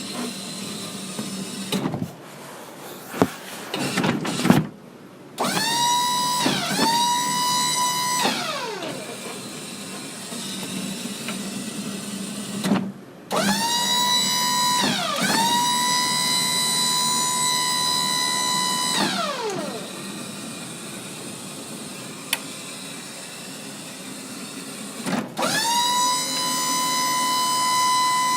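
Electric forklift motor whining up to a high, steady pitch, holding it for a few seconds, then winding back down, three times over. Knocks and clatter come before the first whine, and a lower mechanical running noise fills the gaps between whines.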